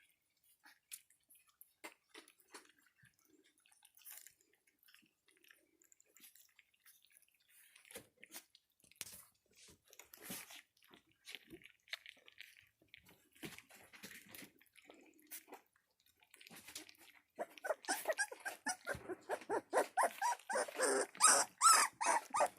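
Three-week-old border collie puppies eating together, with scattered small wet clicks of lapping and chewing. From about 17 seconds in, a puppy starts crying: loud, repeated high-pitched whines and yelps.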